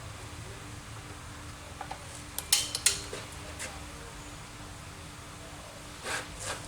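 Metal tools and engine parts clinking and tapping as they are handled: a quick cluster of sharp clicks about two and a half seconds in, another click a second later, and a short scrape near the end, over a faint steady hum.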